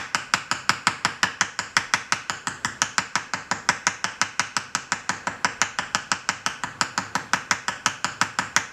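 Small ball-peen hammer tapping rapidly and lightly on the end of a 1 mm wire rivet, an even run of about six or seven sharp metallic taps a second, spreading the wire into a mushroom-shaped rivet head.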